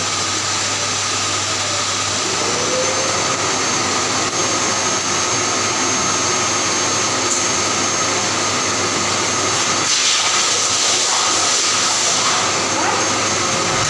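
Steady, loud whirring of a running motor with rushing air. About ten seconds in, a brighter hiss joins it for a couple of seconds.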